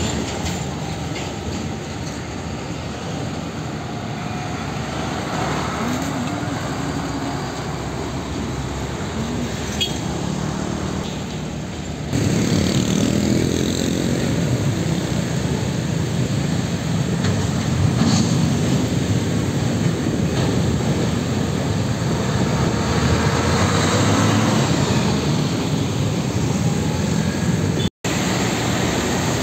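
Road traffic with old Nissan Diesel trucks driving past, diesel engines running under steady road and tyre noise. From about twelve seconds in it is louder, with truck and motorcycle engines rising and falling in pitch.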